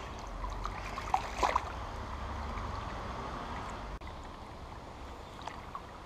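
Shallow river flowing steadily, with wind rumbling on the microphone and a few short splashes about a second and a half in, as a hooked brown trout is brought in on a spoon lure.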